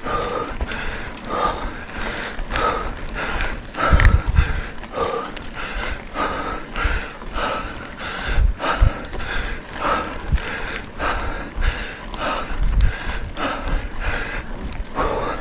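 Mountain biker's heavy, rhythmic breathing while pedalling, about one and a half breaths a second, over a low rumble of tyres on gravel and wind on the microphone.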